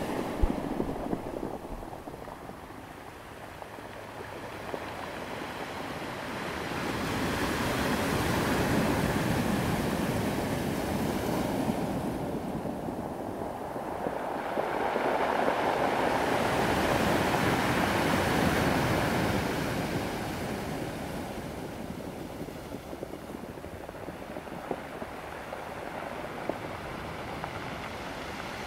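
Ocean surf, a steady wash of breaking waves that swells louder twice in slow surges and ebbs back between them.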